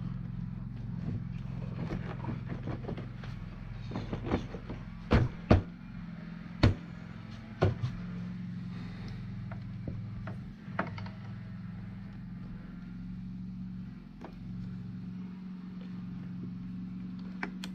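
Sharp metallic clicks and knocks from tools and parts being handled on the motorcycle, clustered a few seconds in and once more later, over a steady low mechanical hum.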